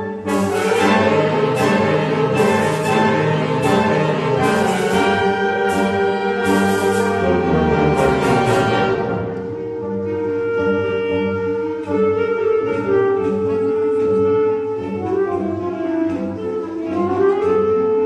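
Concert wind band playing live, brass prominent, with full-band chords and cymbal strokes that drop away about nine seconds in to a quieter passage of held notes under a single melody line.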